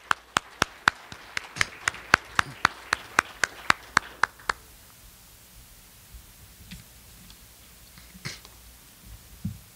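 Hands clapping in sharp, evenly spaced claps, about four a second, stopping after about four and a half seconds; a faint knock near the end.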